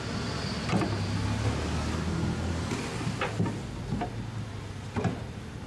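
About five sharp metallic clinks and knocks of hand tools working at the electric motor mounting of a rotary screw compressor, over a low steady hum.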